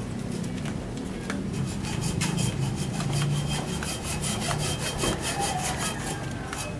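Handsaw cutting wood, a quick, even run of rasping strokes, several a second, starting about a second and a half in. It is carpentry work on a wooden floor under construction.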